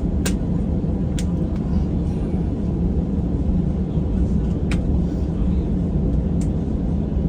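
Steady low rumble inside a jet airliner's cabin on the ground after landing, with a few short sharp clicks over it.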